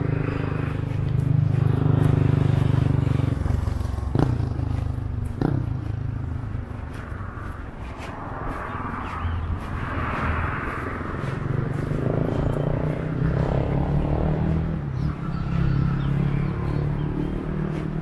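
Road traffic: vehicle engines running past, with two sharp knocks about four and five and a half seconds in.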